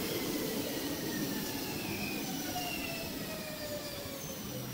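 Electric multiple unit running past the platform: a steady rumble of wheels on rails, with several thin whining tones from its drive that fall slowly in pitch.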